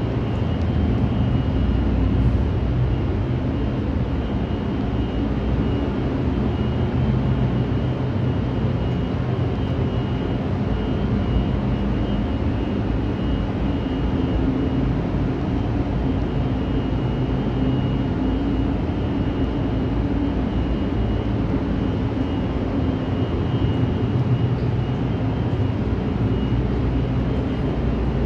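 Steady drone of a ship's engine-room machinery running: a deep, even hum with a thin steady whine above it.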